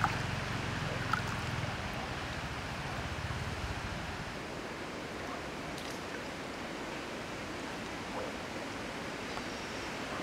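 Steady rush of a flowing stream, with a couple of small splashes near the start as hands work in the water.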